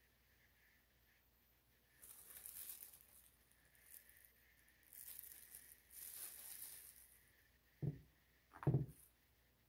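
Plastic glove crinkling and rustling in two stretches as a hand moves over the table, then two dull thumps close together near the end.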